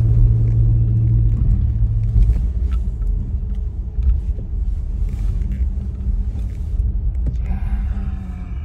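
Motor vehicle running, a loud steady low rumble with an engine hum. About seven and a half seconds in, a higher pitched sound joins it.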